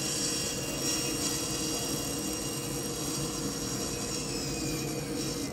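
Table saw ripping a thick hardwood board lengthwise along the fence. The blade runs through the cut at a steady, even pitch with a constant whine.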